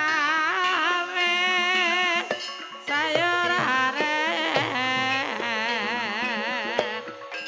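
Traditional Banyumas-style gamelan music accompanying an ebeg dance: a singer's melody with strong, wavering vibrato over struck percussion.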